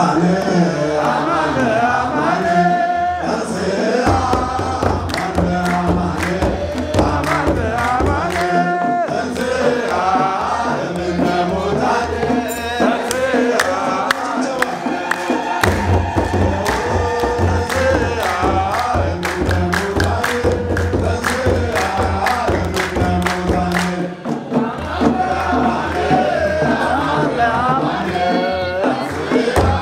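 An Ethiopian Orthodox hymn: a congregation and robed church singers chanting together while a kebero drum is beaten by hand and hands clap on the beat. The deep drum strokes come in about four seconds in and drop out briefly a few times.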